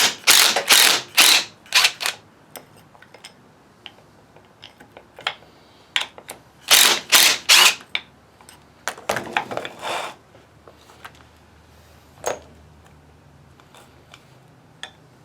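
Hand tools working on a Warn VR8000 winch motor as it is taken apart, making short bursts of metallic clicking and knocking in groups of four or five. A single sharp knock comes about twelve seconds in.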